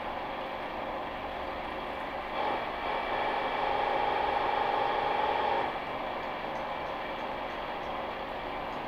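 Milling machine with an angle head running, its drill boring a pilot hole into the forged steel end of a truck tie rod. The steady machine noise grows louder for about three seconds in the middle, then settles back.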